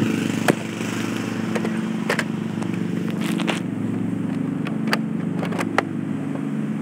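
A motor engine running steadily in the background, with a few sharp clicks and knocks over it.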